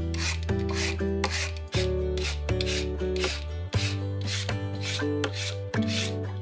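Background music with a steady bass, held chords and an even, shaker-like beat of about two strokes a second.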